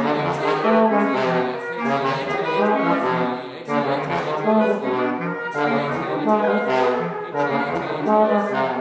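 Trumpet, bass clarinet and trombone playing contemporary chamber music together: short held chords that change about every half second, grouped in phrases with brief breaks between them.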